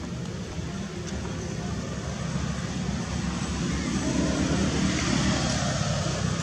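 Steady outdoor background noise: a low, even rumble with hiss, getting a little louder about two thirds of the way through.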